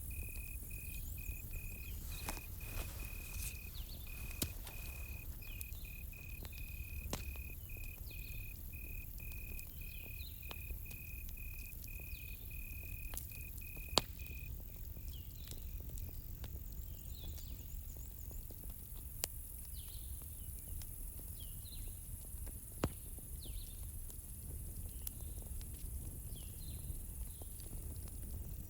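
Campfire crackling with scattered sharp pops over a low rumble of the fire, while crickets chirp: one steady fast cricket trill stops about halfway through, and faint bird chirps come and go.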